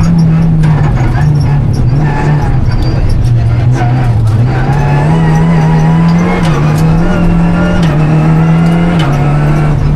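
Renault Clio Rally5's 1.3-litre turbocharged four-cylinder engine at full rally pace, heard from inside the cabin. Its pitch steps up and down repeatedly as the driver works through the gears and brakes for corners.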